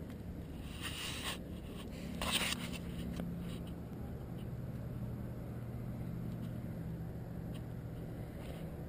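Puppy nosing and mouthing at a GoPro camera: two short scraping rubs against the camera about one and two seconds in, over a steady low hum.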